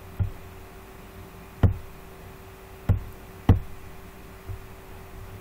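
A few dull knocks at uneven intervals, the last two close together, over a steady faint hum.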